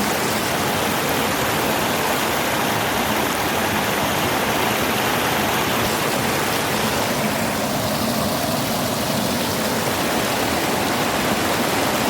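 Waterfall on a river: a steady, loud rush of falling water.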